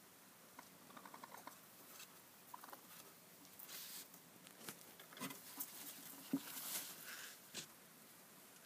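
Faint pattering and scratching of baby raccoons' claws on wooden porch boards, with scattered light taps and brief rustles.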